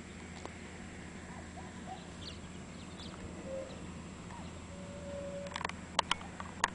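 Faint chirps of small birds over a steady low background hum, with a short held note about five seconds in. Several sharp clicks near the end are the loudest sounds.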